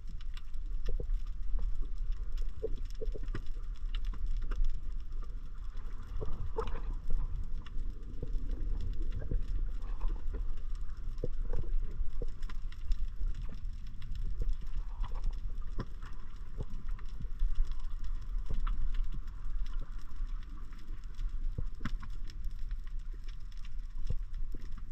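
Underwater sound picked up through an action camera's housing: a steady low rumble of moving water with scattered crackling clicks from the reef.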